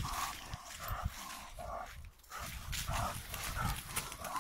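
A dog making short, repeated calls. Footsteps and rustling run underneath.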